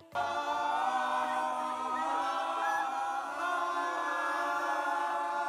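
A small group of voices singing a cappella, holding long notes together in harmony, the chord shifting a little about two seconds in.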